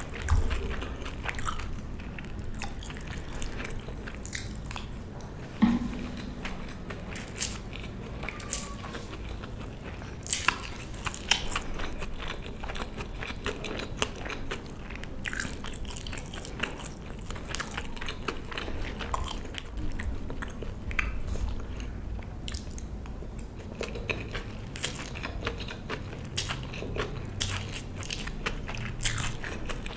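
Close-miked eating: a person chewing and biting food, with many short crunches and wet mouth clicks.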